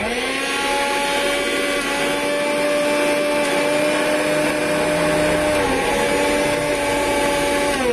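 Sonali Crown 500-watt mixer grinder motor running with its small stainless steel jar fitted. It spins up quickly to a steady whine, dips briefly about six seconds in, and winds down in pitch at the end as it is switched off. It runs smoothly, without vibration.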